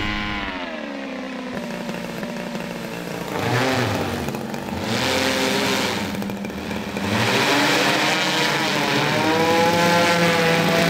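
The VolJet VT10G VTOL drone's DLE 60 two-stroke gasoline engine and propeller, heard from the ground as the aircraft flies overhead. Its pitch falls at first and then wavers up and down. Two rushes of noise come about three and a half and six seconds in.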